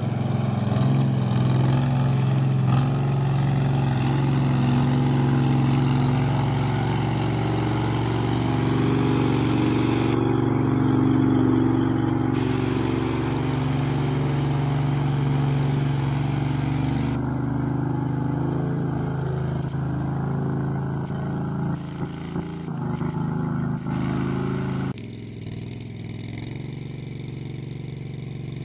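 Argo HDI amphibious ATV's engine running steadily as the tracked machine churns through muddy water. About 25 s in the sound cuts to a quieter, duller engine drone as the vehicle floats through open water.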